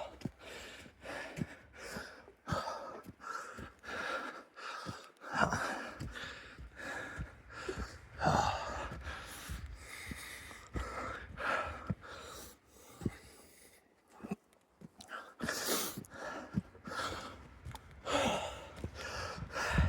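A man breathing hard from the exertion of hiking uphill, loud gasping breaths about once a second.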